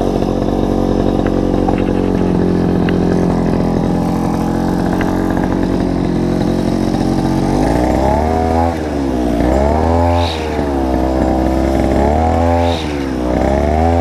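Petrol brush cutter (nylon-line grass trimmer) engine idling steadily, then from about halfway through revved up and down again and again as the spinning line head cuts grass.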